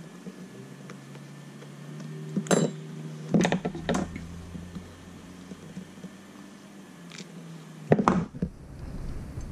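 Small hand tools and metal shock parts clicking and knocking against the workbench during hand assembly of RC crawler shocks: a sharp click a little after two seconds in, a cluster of clicks around three to four seconds, and another cluster at about eight seconds, over a low steady hum.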